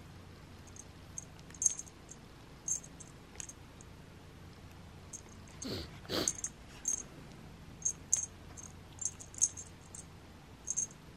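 Light, irregular clicks and ticks of a wand-toy stick against a cat's teeth and fur as the cat rubs its face along it and mouths it, with two quick brushing sounds about six seconds in.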